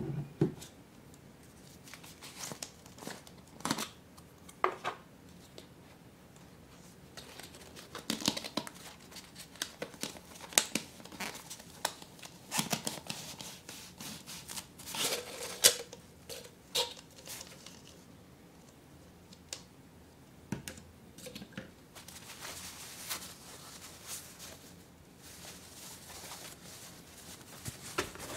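Hands opening a clear plastic canister and sliding out its contents: irregular clicks, scrapes and crinkles of hard plastic packaging, with a busier stretch of rustling about halfway through. Softer rustling of the folded cotton tote bag being handled follows near the end.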